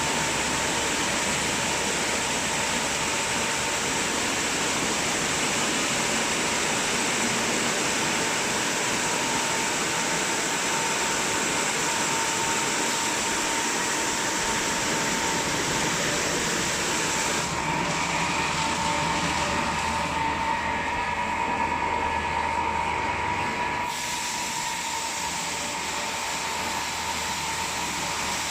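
Christ Varius rollover car wash gantry running through its cycle: a steady rushing noise with a steady whine, the high hiss dropping away for several seconds about two-thirds of the way in before coming back.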